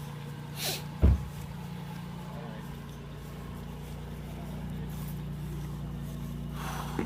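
Car engine idling, a steady low hum, with one loud low thump about a second in.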